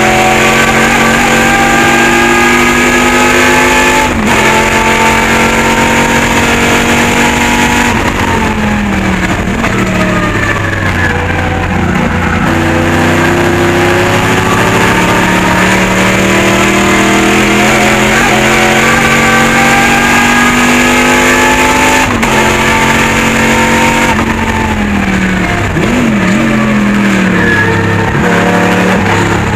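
Race car's V8 engine heard from inside the cockpit under hard acceleration, its pitch climbing steadily through the revs and then falling away under braking, around eight seconds in and again near twenty-four seconds. Near the end the revs jump up and down quickly with downshift blips before climbing again.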